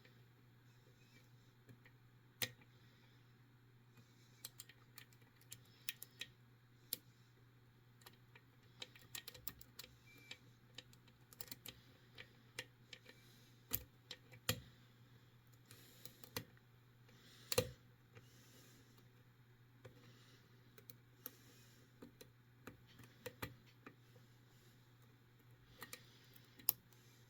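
Lock picks working inside a Medeco 72S three-pin bi-axial cam lock: irregular faint clicks and ticks of metal on metal as the chisel-tipped pins are lifted and rotated, with a sharper click about two-thirds of the way through. A faint steady low hum runs underneath.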